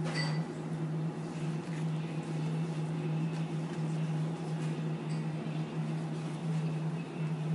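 A steady low electric machine hum fills the kitchen without change, with a light metallic click of the knife against the eel and board just after the start and another faint click about five seconds in.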